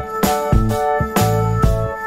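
Background music: a keyboard melody over a bass line, with a drum beat.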